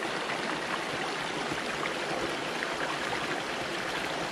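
A small woodland stream running over rocks: a steady rush of water.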